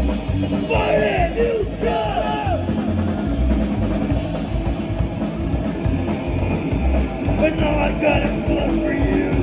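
A psychobilly band playing live and loud: drum kit, upright bass and electric guitar.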